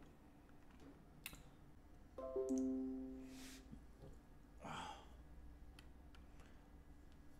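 A Windows desktop notification chime, a short tone that steps down in pitch and dies away over about a second and a half, signalling OBS Studio's 'Reconnection successful' alert. A sigh or breath follows, with a few faint mouse clicks.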